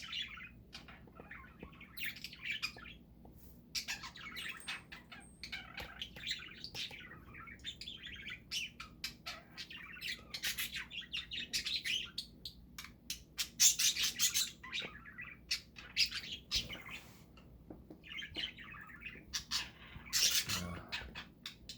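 Several pet budgerigars chirping and chattering in quick, irregular calls, with louder bursts about two-thirds of the way through and again near the end.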